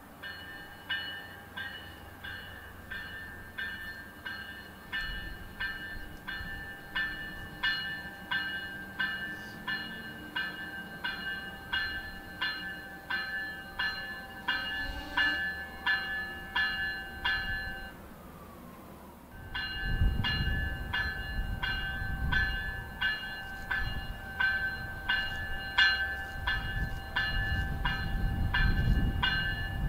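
An approaching MBTA commuter train's warning bell ringing steadily, about one and a half strokes a second. It breaks off briefly about two-thirds of the way through, then resumes over the train's low rumble, which turns loud as the train pulls into the station.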